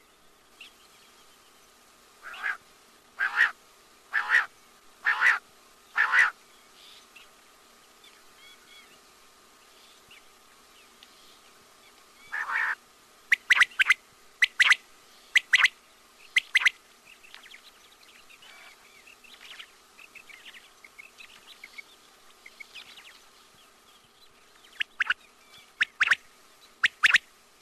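Quail (batair) calling: short, sharp calls about a second apart in runs of four or five, with pauses between runs and fainter chirps in the gaps.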